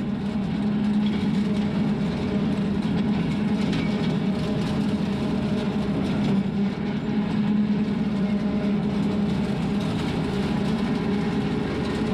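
Frontier RC2072 rotary cutter (bush hog) on a John Deere 2038R compact diesel tractor, mowing weeds and grass: a steady low drone of the tractor and the PTO-driven cutter under a constant hiss.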